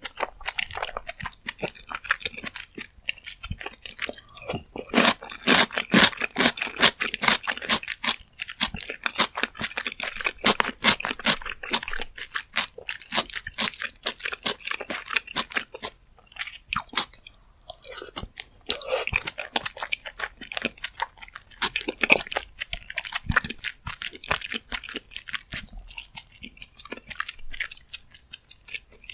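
A person chewing a mouthful of rose jjimdak close to the microphone: a dense run of wet clicks and smacks that eases off briefly a few times.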